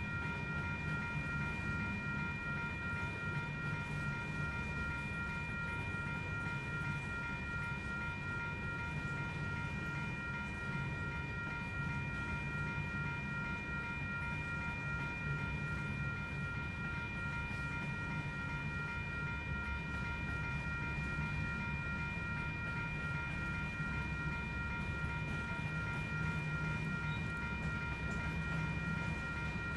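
Freight train of open-top coal cars rolling steadily past, a continuous low rumble of wheels on rail. A steady high-pitched whine holds unchanged over it.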